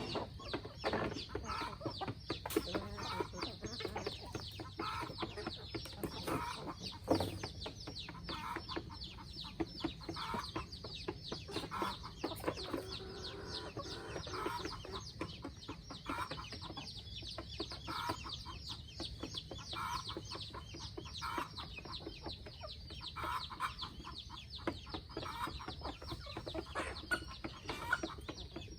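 A flock of free-range chickens clucking, with short clucks coming again and again over a dense run of fine ticking.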